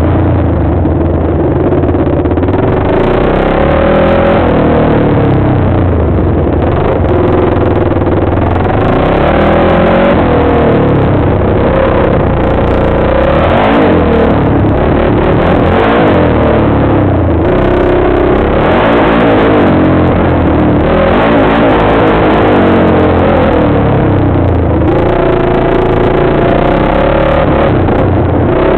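Quad (ATV) engine running loud under way, its pitch rising and falling over and over as the throttle is opened and eased off.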